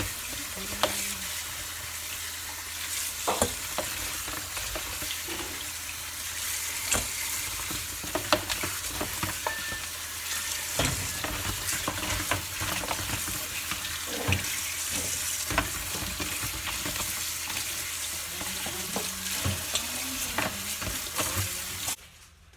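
Food sizzling as it fries in hot oil, a steady hiss with scattered sharp clicks and pops.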